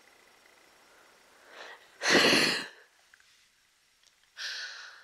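A person's sharp, noisy burst of breath about two seconds in, after a faint intake of breath, then a shorter, softer burst near the end.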